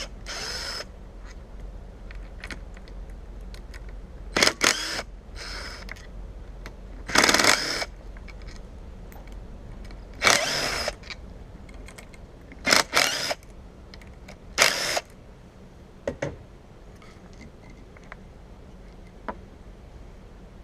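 Short bursts of metal hand-tool clatter, about ten spread irregularly, as Allen-head bolts holding an outboard motor's stator are worked loose.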